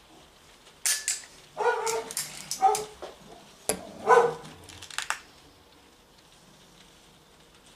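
A dog barking, three or four short barks in the first half, with a few sharp clicks among them.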